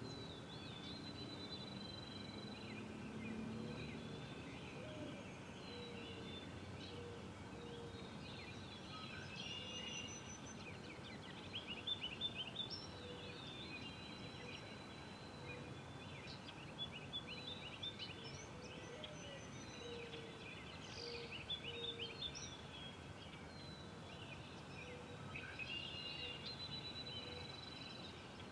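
Wild songbirds singing and chirping over a steady outdoor hiss: short whistles and quick runs of chirps, loudest about twelve seconds in and again around seventeen and twenty-one seconds.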